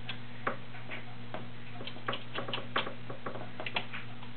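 Irregular small clicks and taps as a plastic pattern cam is handled and fitted into the cam holder of a White 565 sewing machine, over a steady low hum.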